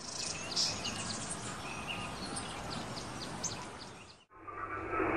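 Birds chirping in quick short calls over a steady outdoor hiss, fading in at the start. A little past four seconds it cuts off and a steady, duller hum and hiss takes over.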